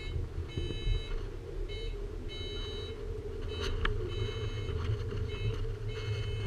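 Cable car cabin moving off along its cable, with a low steady rumble and hum from the running gear. A high electronic beep sounds in short bursts about once a second, and there are two sharp clicks about three and a half seconds in.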